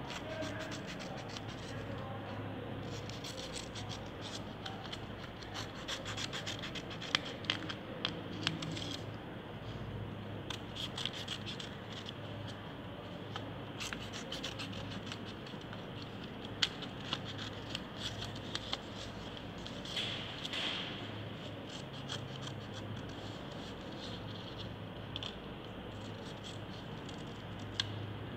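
Scissors snipping through a sheet of green craft paper, cutting out grass blades: irregular runs of short crisp cuts with pauses between them.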